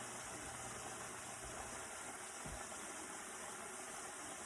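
Chicken wings frying in hot oil: a steady sizzle.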